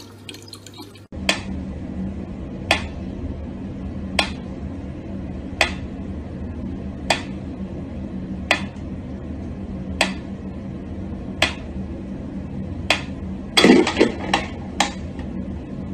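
Mechanical metronome ticking slowly and evenly, about one tick every one and a half seconds, over a steady low hum. Near the end comes a quick flurry of louder clicks and knocks.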